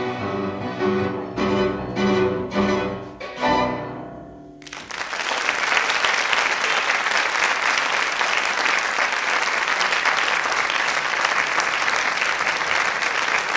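Tango ensemble of solo violin, strings, double bass and piano playing the closing bars: repeated accented chords about twice a second, ending on a final chord about three and a half seconds in. About a second later, audience applause starts and carries on steadily.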